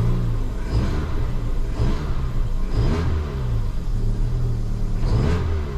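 Ford Fiesta 1.25 Zetec four-cylinder petrol engine revved from idle in several quick blips, the pitch rising and falling each time. It runs smoothly with no misfire heard, though the car is said to misfire randomly once hot.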